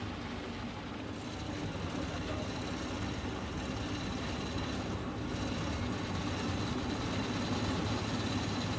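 Double-decker bus's diesel engine running close by, a steady low hum that grows slightly louder, with a faint high whine.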